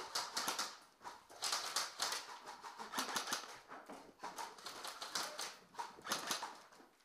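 Airsoft rifles firing in several short rapid-fire bursts of quick clicks, with gaps between the bursts.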